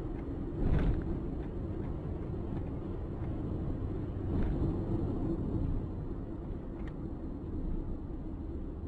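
Steady low rumble of street traffic, with a brief swell about a second in and a few faint clicks.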